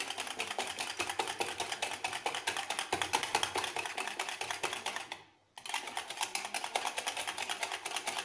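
Wire balloon whisk beating eggs in a plastic bowl: fast, even clicking of the wires against the bowl, with a brief break about five seconds in before the beating resumes.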